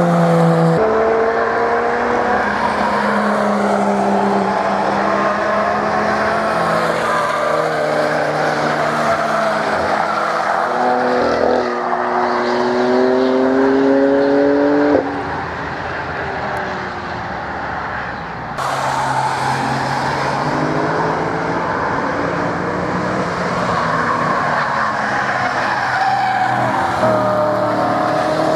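Cars driven hard past one after another, their engines revving and rising and falling in pitch through gear changes and lifts. The sound changes abruptly about 15 and 18 seconds in.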